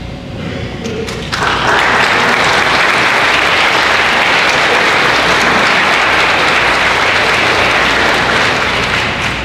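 Audience applauding. The applause starts suddenly about a second in, holds steady and fades near the end.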